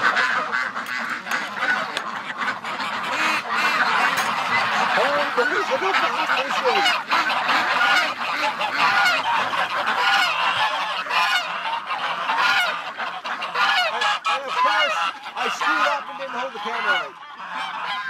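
A flock of domestic ducks and geese calling all at once as they rush out of their pen: a dense, continuous chorus of overlapping quacks and honks from many birds.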